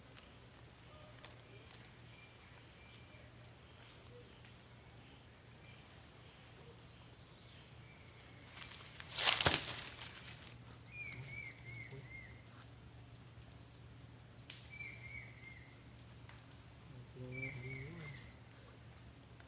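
Outdoor wetland ambience: a steady high-pitched insect drone, and a bird calling a short falling series of chirps four times in the second half. About halfway through, a single loud sudden noise lasting about half a second stands out above everything.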